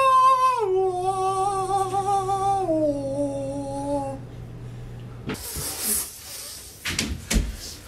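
A person voicing a sound effect: a sustained hummed tone that steps down in pitch, held on three notes over about four seconds. After a short gap, from about five seconds in, come noisy, breathy hissing sounds with a few sharp clicks.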